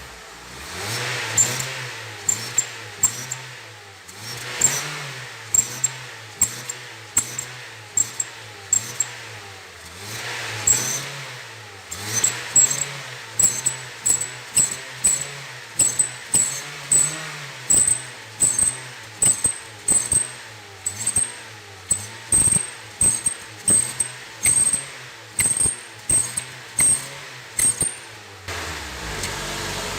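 Honda New Civic engine revved over and over, its note rising and falling with each press of the throttle, with sharp, high-pitched chirps on the revs that come about once a second in the second half. This is the whistle the car makes on acceleration; with the exhaust tip off it is still there, and the mechanic puts it down to the muffler's worn-out core. Near the end the revving stops and the engine settles to idle.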